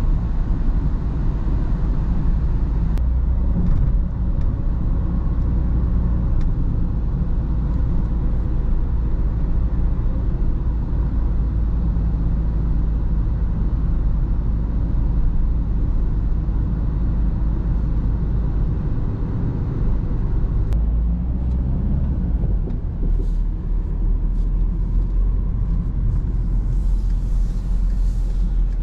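2008 Skoda Octavia 1.9 TDI four-cylinder diesel driving in town, heard as a steady low engine drone with tyre and road rumble. The low drone dips and changes briefly about twenty seconds in.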